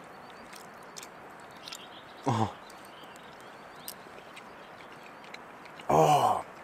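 A man's wordless hums of enjoyment while eating: a short "mm" about two seconds in and a louder, longer one near the end, with faint small clicks between.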